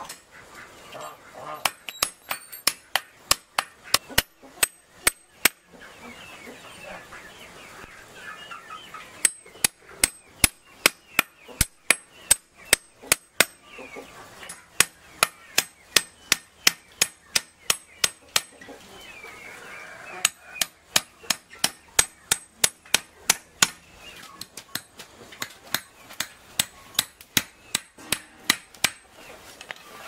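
Rapid chopping strikes, about three a second, in runs of several seconds with short pauses between them. Chickens cluck in the background.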